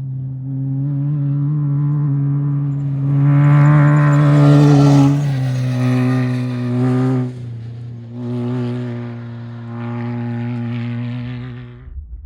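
Off-road race vehicle's engine running hard at steady high revs as it goes past. It is loudest about four to five seconds in, the pitch drops slightly as it passes, and it cuts off sharply near the end.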